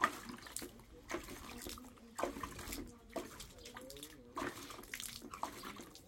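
Shiba Inu splashing in water, a series of short irregular splashes about once a second.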